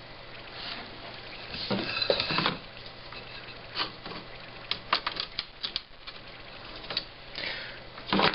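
Light clicking and scraping of small tools being handled on a workbench, with a quick run of clicks about five seconds in, over a faint steady hum.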